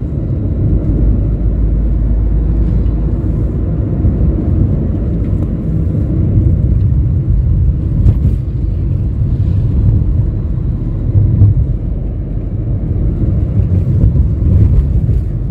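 Steady low rumble of a car on the move: engine and road noise heard from inside the cabin.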